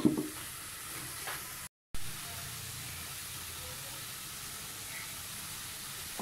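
Chicken mince and onions sizzling steadily in a frying pan, with a short knock and scrape at the very start as black pepper is tipped in from a wooden bowl.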